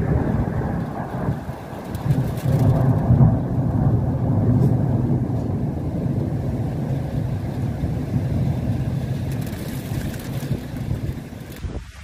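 Deep rumbling of a snowstorm during heavy snowfall. It swells about two to three seconds in and then slowly eases off.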